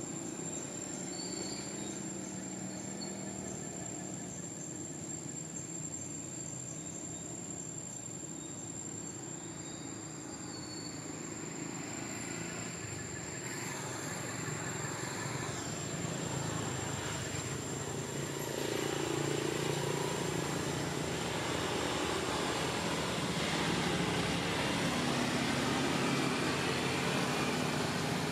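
A steady motor rumble, like a running vehicle engine, grows louder over the second half. A constant thin, high-pitched whine runs underneath.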